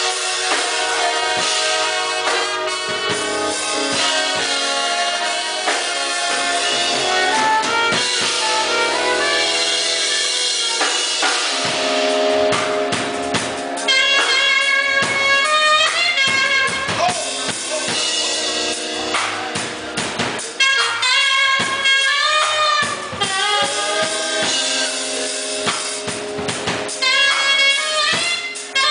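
Band music with a drum kit keeping a beat and a horn playing a melody line, the melody coming more to the fore about halfway through.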